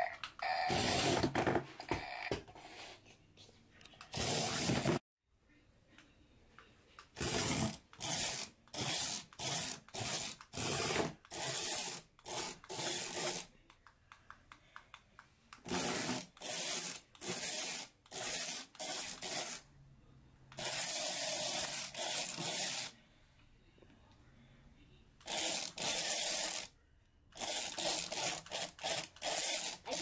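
Remote-control 'pile driver' poop toys playing fart sound effects from their speakers: a long string of short blasts, a few held for a second or two, with short gaps between.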